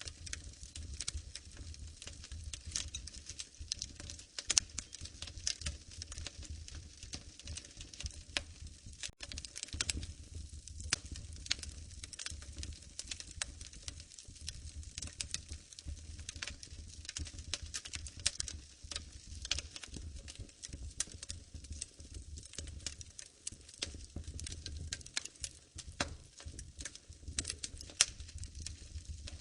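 Wood fire in a fireplace crackling, with a continuous run of irregular small pops and snaps over a low steady rumble.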